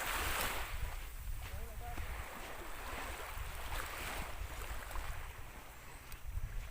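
Sea waves washing on the shore, rising and falling every second or two, with wind rumbling on the microphone.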